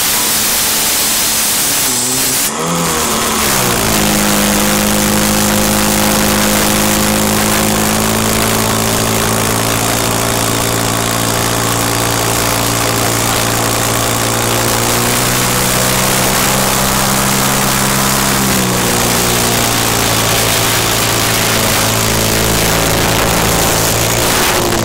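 Portable fire pump's engine revving up about three seconds in and holding high, steady revs while it pumps water out through the hoses, its pitch dipping briefly later on and falling away near the end.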